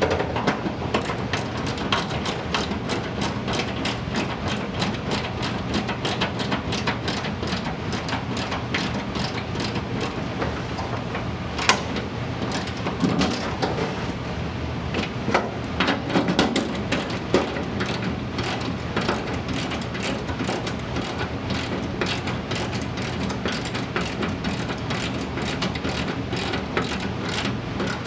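Ratchet wrench clicking in rapid, uneven runs as nylock nuts are run down on bolts, over a steady low hum.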